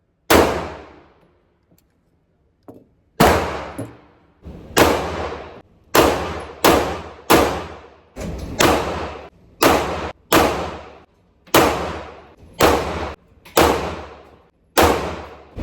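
Pistol shots: one shot, then after a pause a string of a dozen or more fired at a steady pace, about one to two a second, each with a short ringing tail.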